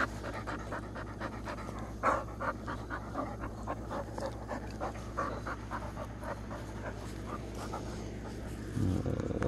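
Dogs panting close to the microphone, quick rhythmic breaths at about three a second.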